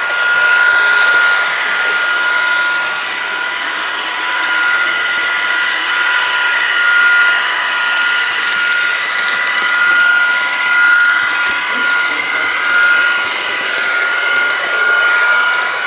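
H0 model train running on three-rail track: a small electric motor whining steadily at a fixed pitch, with the rolling and rattling of the wheels on the rails.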